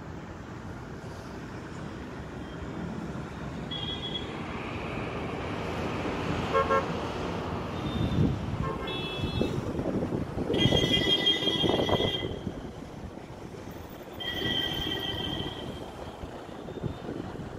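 Road traffic with vehicle horns honking: a few short toots, then a long honk near the middle and another a few seconds later.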